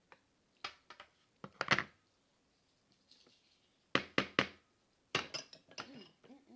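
Crunchy taco shells crunching as they are bitten and chewed close to the microphone, in irregular clusters of sharp crunches.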